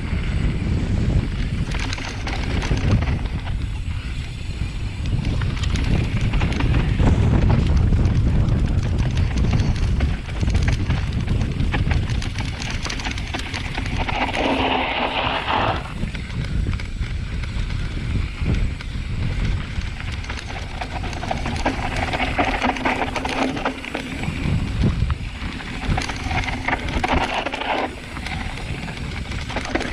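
Mountain bike riding down a loose, dry dirt trail: wind rushing over the microphone, with the tyres crunching and the bike rattling over rocks and roots. About halfway through there is a brief, brighter hiss.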